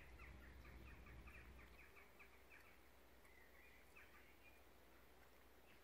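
Faint birdsong: a quick run of short chirps for the first few seconds, then a few scattered notes, over a low steady rumble.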